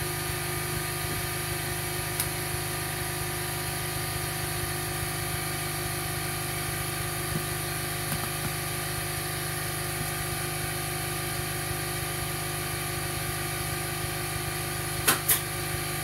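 Steady mechanical hum of a running machine, made of several held tones at an even level, with two short clicks near the end.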